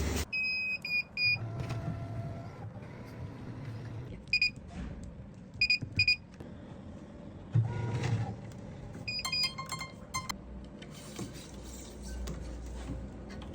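Short high-pitched electronic beeps in small groups: three close together near the start, then pairs and threes a few seconds apart, and a quicker run of beeps at several pitches about two thirds of the way through, over faint background noise.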